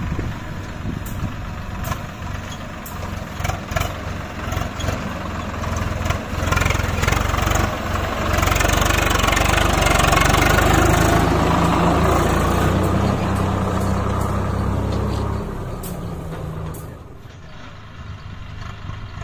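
Diesel tractor engine running. It grows louder from about six seconds in, stays at its loudest for several seconds, then falls back near the end.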